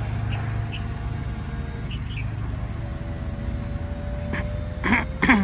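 Daihatsu Copen's power-operated retractable hardtop closing: a steady whine from its drive mechanism starts about halfway through and slowly sinks in pitch, over the low hum of the idling 660 cc engine. Two short louder sounds come near the end.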